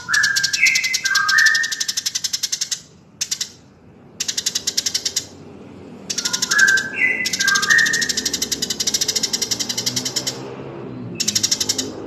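Looped birdsong training recording of Eurasian tree sparrow and white-rumped shama: fast trains of high chirps in bouts of one to four seconds with brief gaps. A short phrase of clear whistled notes stepping up and down comes near the start and again about six seconds in.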